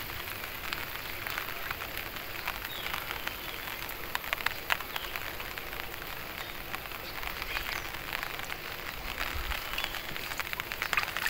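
Water dripping and pattering onto a still pond surface, with many small ticks and splashes, as a wet gill net is lifted and handled over the water.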